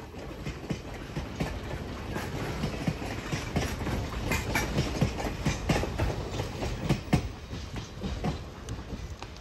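Steel wheels of passing passenger coaches clickety-clacking over the rail joints, with a steady rumble underneath. The clatter eases off near the end as the last car goes by.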